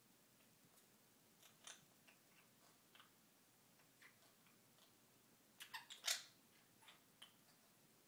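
Quaker parrot in its wire cage making faint, scattered clicks and ticks, with a quick cluster of louder ones about six seconds in.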